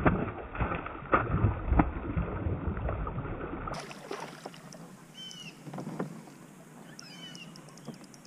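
A hooked bass thrashing and splashing at the surface beside the kayak, mixed with sharp knocks of rod and reel handling. After about four seconds the sound drops to a quieter hush with a few faint high chirps.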